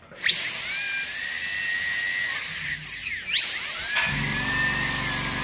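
High-speed air-turbine dental handpiece spinning up with a rising whine, then whining steadily as its bur cuts into an extracted molar; the pitch drops and climbs back a little after three seconds in, and a rougher hiss joins about four seconds in.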